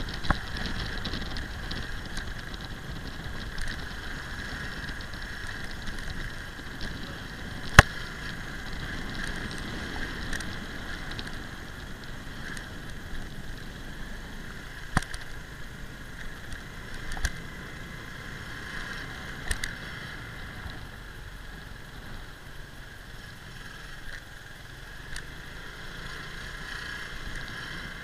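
Riding noise picked up by a camera on a motorbike moving slowly over brick-paved streets: a steady hiss and hum, with a few sharp knocks, the loudest about eight seconds in.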